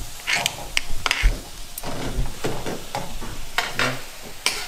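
Steak sizzling in a pan, with metal utensils clicking and scraping against the pan about ten times at irregular intervals as the cooked meat is cut and moved.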